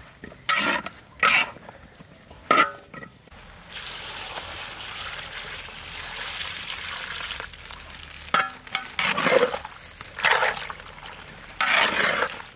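Water pouring into a large wok of frying chicken gizzards and vegetables, a steady hiss that starts about four seconds in and lasts about four seconds. Short, louder sounds come before and after it.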